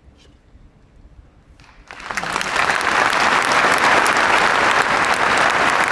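A large concert audience breaks into applause about two seconds in, rising quickly to dense, steady clapping.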